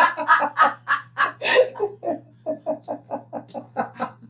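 A person laughing hard in a long run of short bursts, about four to five a second, growing weaker and stopping near the end.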